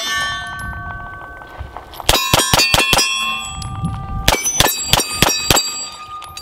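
Beretta PX4 Storm 9mm pistol fired in two fast strings of about six or seven shots each, about two seconds in and about four seconds in. Steel targets ring with clear, lingering tones after the hits; ringing from an earlier string is still fading at the start.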